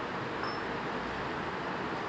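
Steady background noise, an even hiss with no distinct events. A brief faint high tone sounds about half a second in.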